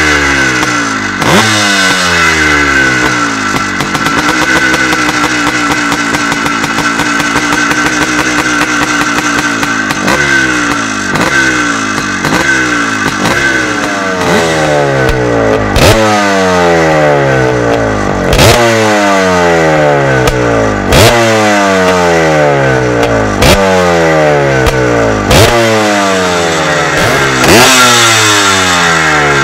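1971 CZ 380cc single-cylinder two-stroke motocross engine being revved on its stand: held at steady revs for a few seconds, then blipped sharply every two to three seconds, the revs falling away slowly after each blip.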